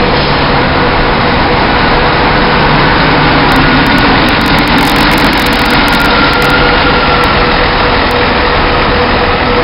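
Scania K124IB coach's rear-mounted diesel engine idling steadily, heard up close at the engine grille, with a steady whine over the engine noise.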